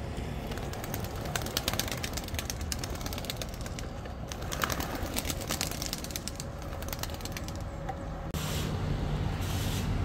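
Racing pigeons' wings flapping and clapping, a rapid run of sharp clicks over the first half, over a steady low background rumble.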